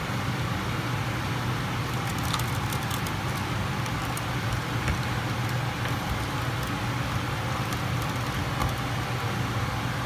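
Steady low machine hum over a broad rushing background, with a few faint clicks and rustles of copper wire being bent by hand.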